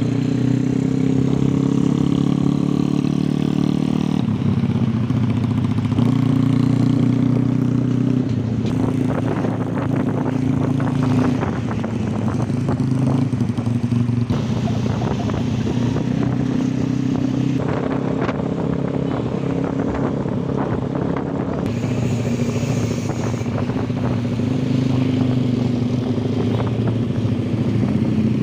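Honda Tiger single-cylinder four-stroke motorcycle engine running under way. Its pitch holds steady, then steps to a new level several times as throttle and gears change. A rough crackling noise runs through the middle stretch.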